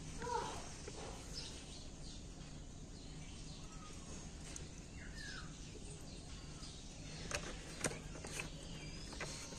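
Faint background hiss with occasional short bird chirps and two sharp clicks about a second apart near the end.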